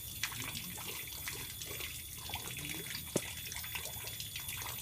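Water running and trickling steadily, with one sharp tick about three seconds in.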